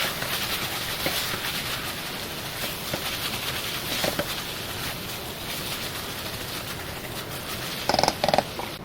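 Chicken sizzling as it sears in a hot frying pan, a steady hiss. Near the end come two short, pitched calls.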